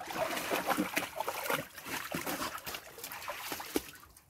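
Water splashing and sloshing in a plastic paddling pool as German Shepherd dogs paw and play in it, in irregular splashes that die away near the end.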